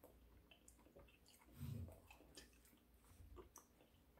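Near silence: room tone with a few faint small clicks and one brief soft low sound about one and a half seconds in.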